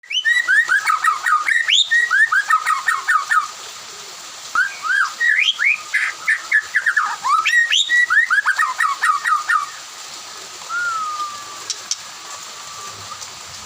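White-rumped shama singing: two long bursts of fast, varied whistled phrases, then a single softer slurred whistle about ten seconds in.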